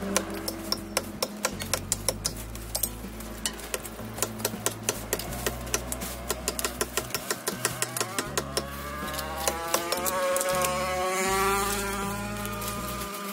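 Long-handled hoes scraping and knocking over dry leaves, twigs and hard soil, giving irregular sharp clicks about three or four a second. Under them sit steady low notes that change in steps. In the last few seconds a long, wavering pitched sound rises above the clicking.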